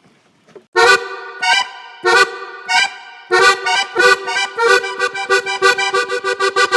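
Music starting about a second in: repeated chords, spaced at first, then quickening into rapid repeated notes.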